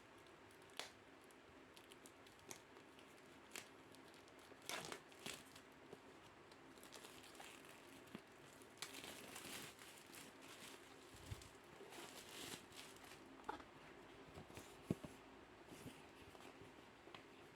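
Faint crinkling and rustling of packaging and paper being handled, with scattered small clicks and taps and a few louder crinkly bursts around five, nine to ten and twelve seconds in.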